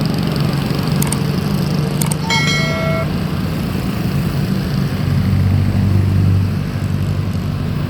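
Road vehicle engine running steadily as traffic passes, with a short single-tone horn toot about two seconds in. The engine grows louder about five seconds in as a vehicle goes by close, then eases off.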